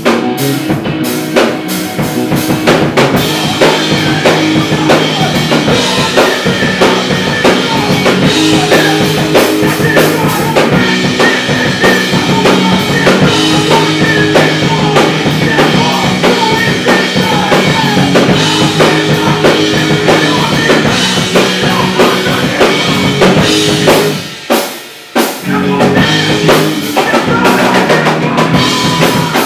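Hardcore rock band playing live: electric guitars over a pounding drum kit. About four-fifths of the way through the band stops for about a second, then crashes back in.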